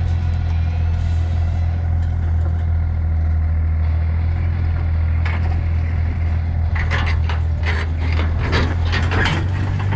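A 1982 Dodge Ram D150 pushed by hand down a flatbed trailer, its wheels rolling on the wooden deck, over a steady low hum. From about seven seconds in, a quick run of creaks and clanks comes from the trailer and ramps as the truck nears the back edge.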